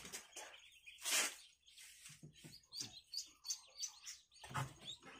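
Newly hatched ducklings peeping repeatedly in short, high calls, with a brief noise about a second in.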